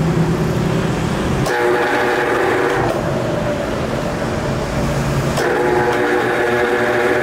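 Machinery running steadily, with two spells of a steady multi-tone whine: one from about a second and a half in, lasting over a second, and a longer one from about five seconds in.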